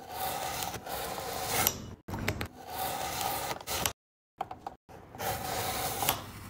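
Kitchen knife cutting through an orange, peel and flesh: a rasping, scraping cut heard three times, each lasting about two seconds and ending in a short click.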